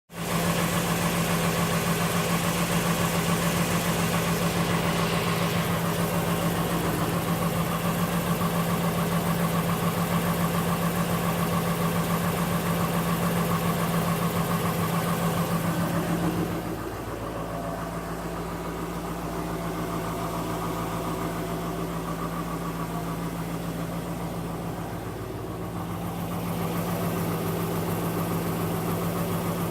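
A machine running steadily with a low, even hum. About sixteen seconds in it becomes quieter and its tone shifts, with a brief dip a little later before it picks up again.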